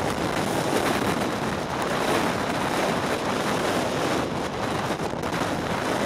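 Strong wind blowing across the microphone: a loud, steady rushing noise.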